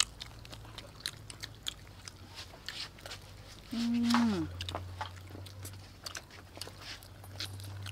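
Close-up eating sounds: crispy deep-fried chicken legs being bitten and chewed, with many short sharp crunches and crackles. A short voice sound falling in pitch comes about four seconds in.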